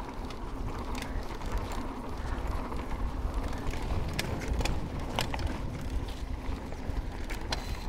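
Mountain bike descending a dry dirt trail at speed: steady rumble of tyres and bike over the ground, with scattered sharp clicks and rattles.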